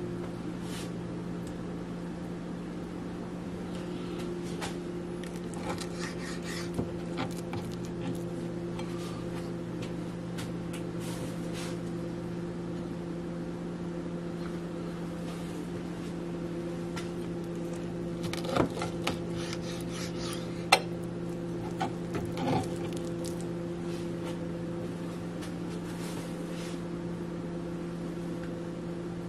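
Steady low electrical hum of a kitchen appliance. There are a few light knocks, then past the middle a brief cluster of sharper clatter as kitchen things are handled on a counter.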